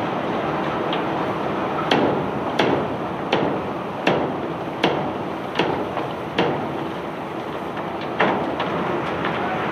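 Cobblestones being discharged from a self-unloading barge. The unloading machinery runs steadily, with a run of seven sharp knocks about one every three-quarters of a second, then one more near the end.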